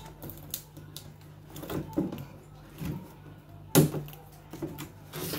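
Toy packaging being handled and worked open: irregular clicks, taps and rustles of cardboard and plastic, with one sharp knock a little under four seconds in, over a faint steady hum.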